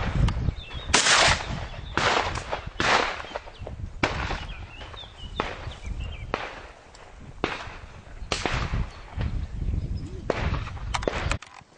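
Shotgun shots on a clay-shooting range: about ten sharp reports spread over several seconds, each with a trailing echo, the loudest about a second in and about three seconds in, others fainter. The sound cuts off suddenly near the end.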